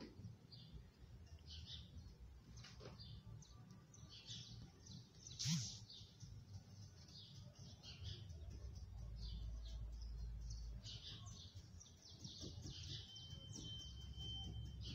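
Faint small-bird chirps, short and scattered, over a low background rumble, with one louder sharp sound about five and a half seconds in.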